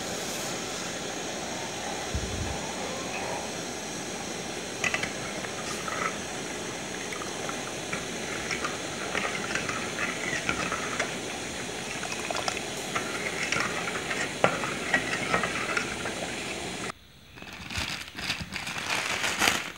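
Steady hiss of a pot of milk heating on a stove, with a steel spoon stirring and clinking against the aluminium pot now and then. The sound drops out briefly near the end, then the hiss comes back stronger as the milk nears the boil.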